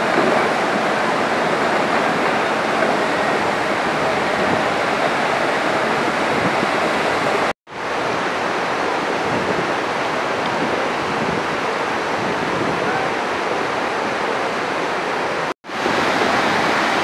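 Rushing water of a flooded mountain river: a steady, even rush that drops out abruptly twice, about eight and sixteen seconds in.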